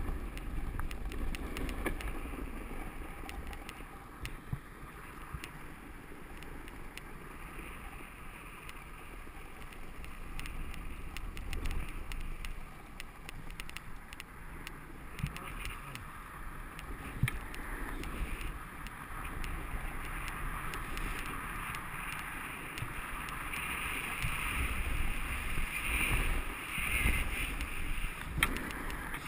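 Snowboard sliding down groomed snow: the board hisses and scrapes over the snow while wind buffets the helmet-camera microphone. The hiss grows louder in the last few seconds.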